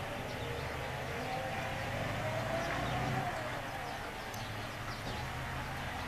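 Volvo 780 semi-truck with a loaded curtain-side trailer moving slowly past, its diesel engine running with a low steady drone. A whine rises and falls for a second or two in the middle.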